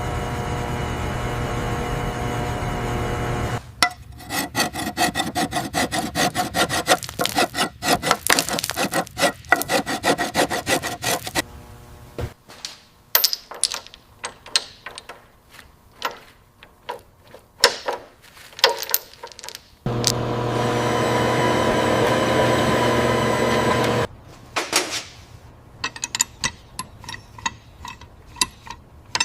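Workshop restoration sounds: a steady machine run, then fast back-and-forth rasping strokes like sanding or filing, then scattered scrapes and clicks. A second steady machine run of a few seconds comes before more scattered clicks near the end.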